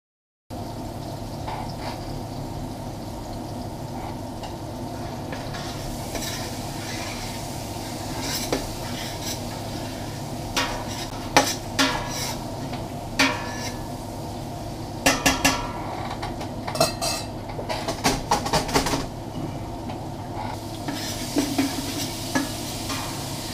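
Floured beef chunks sizzling in hot oil in a stainless steel stock pot, starting half a second in. A metal spoon scrapes and clinks against the pot as the meat is stirred and turned, the clinks coming in clusters through the middle.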